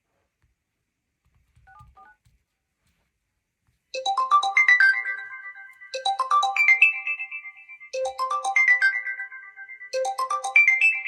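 Smartphone ringtone for an incoming call, starting about four seconds in: a short rising melodic phrase repeated every two seconds. A faint short blip sounds about two seconds in.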